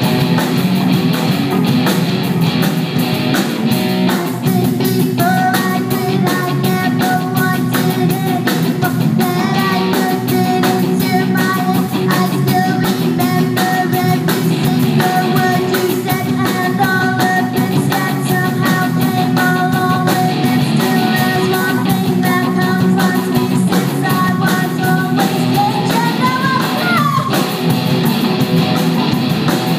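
A rock band playing, with a drum kit keeping a steady beat under electric guitar and a melody line that slides upward near the end.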